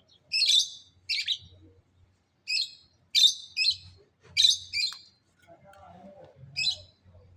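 Parrots calling: about eight short, harsh, high-pitched screeches, several coming in quick pairs, with gaps between them.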